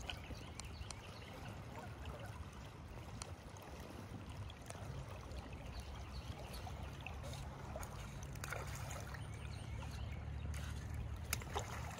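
River current running steadily over rocks in a tailwater, a continuous rush of water with a low rumble underneath.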